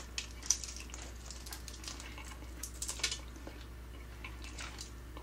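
Close-miked eating sounds: cooked quail being pulled apart by hand and chewed, a scattering of small wet clicks and crackles, with a louder one about half a second in and another around three seconds.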